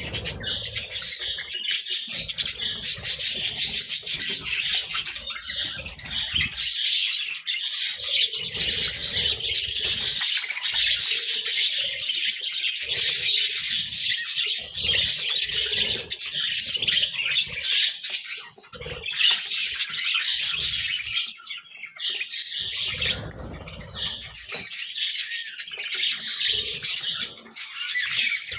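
A flock of budgerigars chattering and chirping continuously, a dense warbling twitter, with occasional wing flaps and light knocks and rustles.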